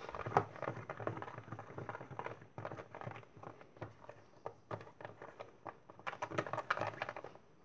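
Hands kneading and stretching fluffy glue-and-shaving-foam slime in a plastic tub: a dense run of irregular sticky clicks and crackles that stops near the end.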